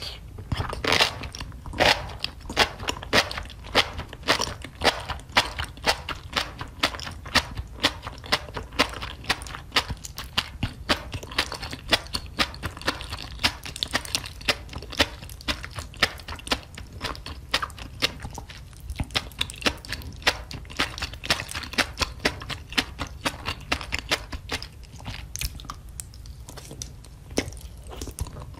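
Close-miked chewing and mouth sounds of a person eating enoki mushrooms in spicy sauce, with many short wet clicks and smacks, several a second.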